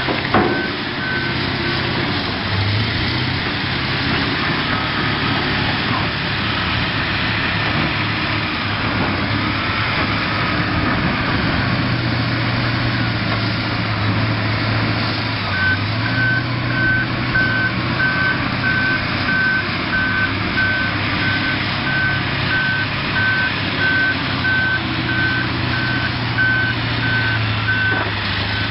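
Heavy diesel machine running steadily, with its reversing alarm giving evenly spaced single-pitch beeps that stop shortly after the start and resume about halfway through. A sharp clank sounds just after the start.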